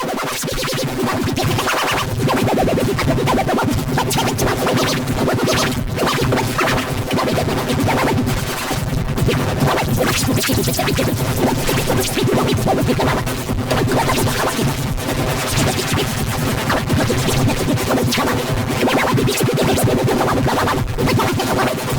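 Loud, dense electronic music with a fast rhythm of clicks, the kind of distorted, layered audio effect made in video-editing software.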